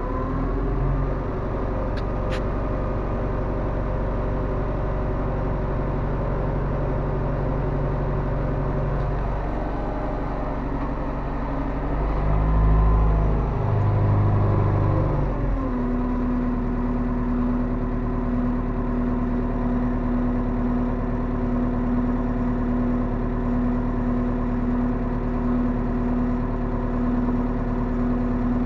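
Diesel engine of a New Holland tractor running, heard from inside its cab while its hydraulics tip up a loaded manure trailer. The engine note changes about halfway through, briefly louder, then settles into a steady higher hum.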